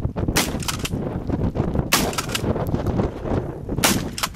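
Rifle fire: several sharp shots at uneven intervals, the loudest about half a second, two seconds and four seconds in, with lighter cracks between them.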